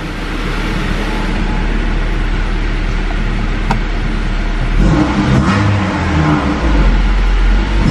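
Honda Civic engine with newly fitted stainless-steel exhaust headers running, heard from inside the cabin: it idles steadily, then is revved and held higher from about five seconds in.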